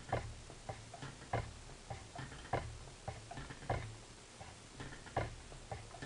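Wooden Schacht spinning wheel being treadled, with bobbin and flyer spinning: a regular knock about once a second, with lighter clicks between, over a low rumble of the turning wheel.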